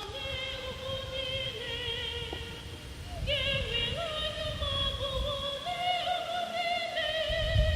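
Church choir singing: long, high notes held with vibrato by female voices, moving to a new pitch a few times.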